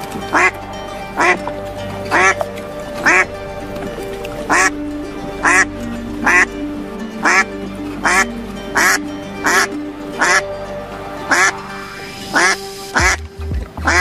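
Background music with held notes, overlaid by duck quacks repeating about once a second.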